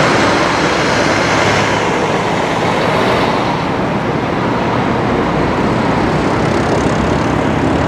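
Boeing 737-700's CFM56 jet engines running at high power as the airliner starts down the runway, heard from a distance as a loud, steady rushing noise.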